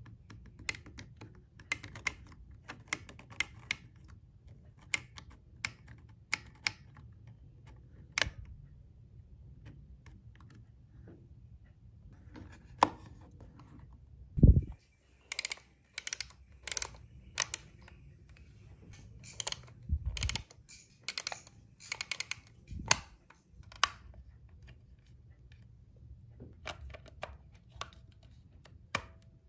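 Sharp plastic clicks and snaps from handling a Kodak M35 35 mm film camera while it is loaded with film and a battery, with three louder low thuds about halfway through and two-thirds of the way in.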